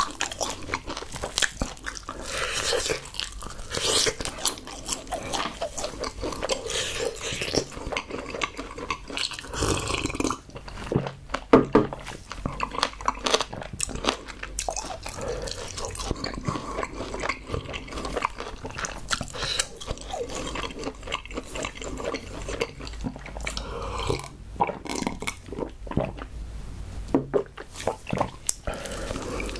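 Close-miked person chewing spicy sauce-coated fried chicken: wet, sticky mouth sounds with many small irregular clicks, and one louder click about eleven seconds in.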